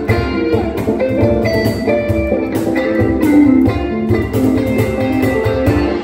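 Live band music: a Telecaster-style electric guitar played note by note over keyboard, with a full, steady low end.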